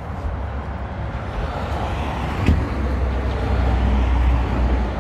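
Road traffic on the street: a low vehicle rumble that grows louder to a peak about four seconds in and eases off near the end, with one short click about halfway through.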